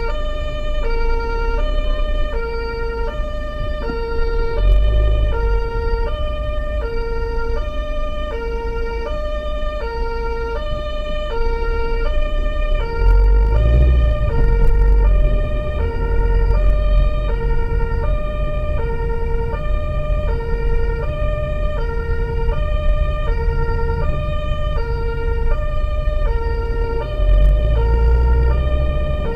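German two-tone emergency siren (Martinshorn) on the vehicle itself, heard from inside the cab, switching steadily between a low and a high tone about once a second. Under it the vehicle's engine and tyres run in stop-and-go traffic, swelling a few times as it pulls forward.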